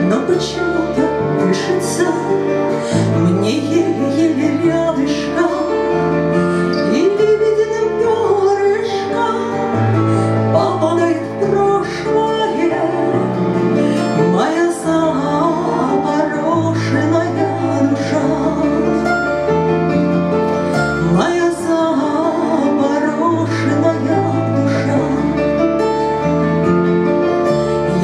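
A woman singing a song into a microphone over a backing track played through PA speakers. The accompaniment has a bass line moving to a new note every couple of seconds and light percussion.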